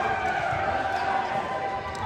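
Crowd of spectators chattering in a gymnasium, many voices blending into a steady murmur with echo from the hall.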